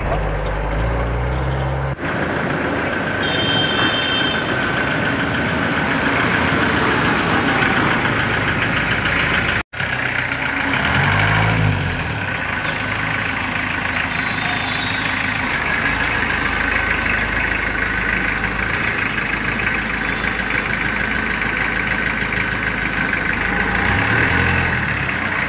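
Engine of a 1991 open vintage jeep running as it is driven, a steady drone that cuts out for an instant about ten seconds in.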